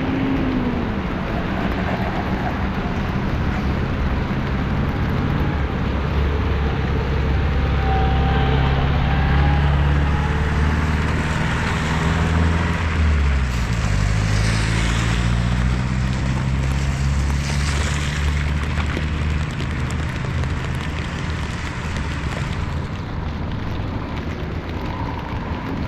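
Traffic on a wet city road in the rain: a large vehicle's engine hum drops in pitch as it passes about halfway through. Underneath is a steady hiss of rain and tyres on wet pavement, and a few louder swells of spray hiss come just after it.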